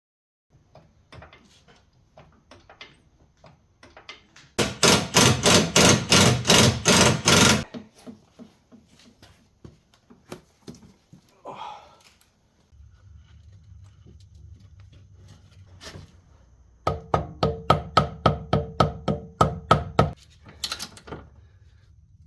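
Two bursts of rapid, evenly spaced knocks, several a second, each lasting about three seconds, with scattered fainter clicks and knocks between them.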